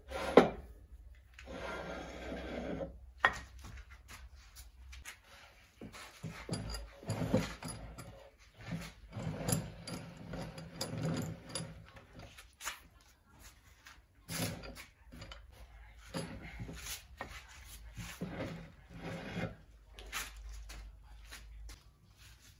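Homemade metal lathe's carriage and cross-slide being worked by hand: irregular steel-on-steel scraping and rubbing as it slides along the bed, broken by sharp clanks and knocks, the loudest near the start and about three seconds in. Near the end the assembly is lifted off and set on a wooden bench.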